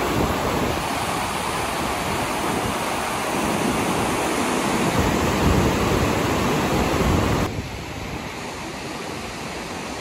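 Fast mountain river rushing over boulders, a steady whitewater noise with wind buffeting the microphone. The sound drops and thins about three-quarters of the way through.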